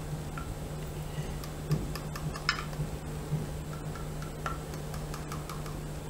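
Kitchen knife cutting through set, jelly-like Karachi halwa in a glass baking dish, its blade clicking and tapping against the glass several times.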